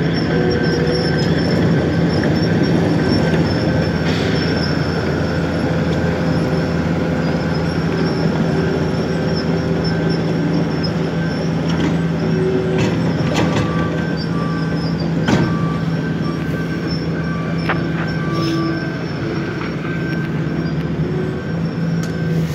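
A road-milling machine and a Cat 246D skid-steer loader working the milled asphalt: a steady, loud diesel drone, with high metallic squealing that comes and goes and a few sharp clicks in the second half.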